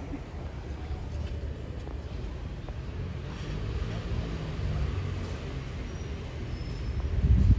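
Steady low rumble of city traffic, with a faint engine hum swelling in the middle and a louder low surge near the end.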